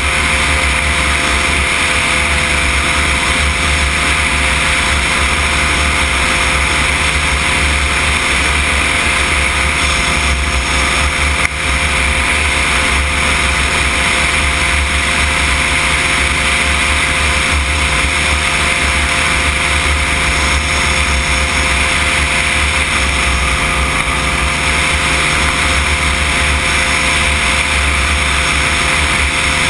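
Cosmos weight-shift microlight trike in cruising flight: its engine and pusher propeller run at a steady drone under a constant rush of air.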